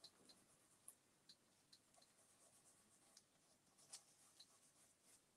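Near silence: faint room tone with a few scattered light ticks and a soft rubbing.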